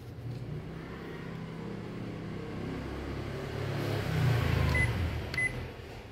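Ricoh MP4002/5002 copier running, its motors and fans giving a steady low hum that grows louder about four seconds in. Near the end the operation panel gives two short high beeps.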